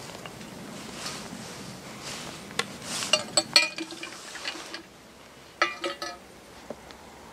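Metal drinking flask being handled, its cap twisted and its metal parts clinking with a short ring: a quick run of clinks about three seconds in and a few more about two seconds later. A soft rustle of handling underneath in the first half.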